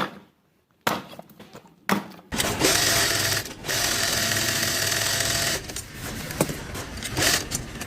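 Three sharp knocks about a second apart, then a small motorised tool runs steadily for about three seconds and stops, followed by a few lighter clicks.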